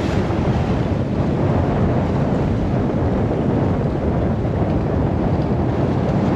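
Steady wind buffeting the microphone, over the wash of waves on the open sea.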